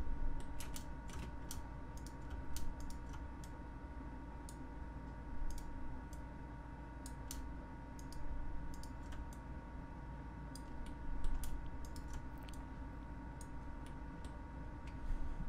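Irregular clicks of a computer keyboard and mouse as modeling shortcut keys are tapped, a few at a time with short gaps, over a steady electrical hum.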